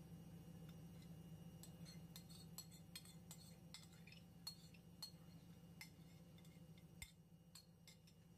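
Faint scattered clinks and ticks, a dozen or so light taps of kitchenware against glass, while peri-peri marinade is drizzled over a whole raw chicken in a glass bowl, over a low steady hum.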